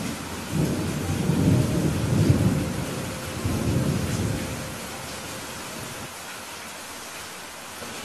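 Steady rain hissing, with a low rolling thunder rumble that starts about half a second in, swells twice and dies away around the middle, leaving the rain alone.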